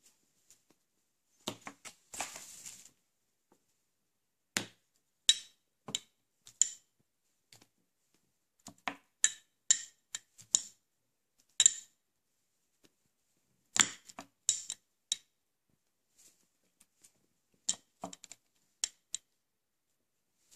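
Small plastic spray bottles being handled and set down: scattered sharp clicks and taps as they knock against each other and the plastic-covered tabletop, with a short rustle about two seconds in.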